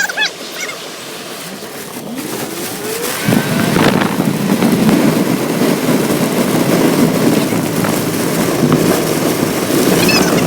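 A vehicle pulling away: a rising engine note, then from about three seconds in loud, steady engine and road noise.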